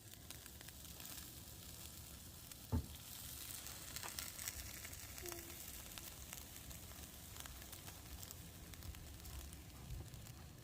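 Food sizzling on a barbecue grill: a steady hiss with scattered small pops. A single thump comes nearly three seconds in.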